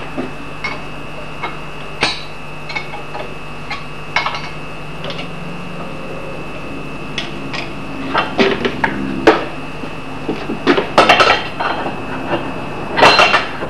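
Metal clicks and clinks of an axe and the clamp of an axe grinding jig being handled and adjusted: scattered single ticks at first, then bunches of louder knocks and clatter in the second half.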